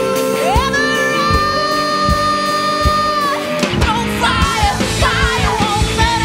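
Live rock band playing, with drum kit, bass, guitar and singing. A high note slides up and is held for about three seconds, then the drums get busier and fast-moving singing comes in.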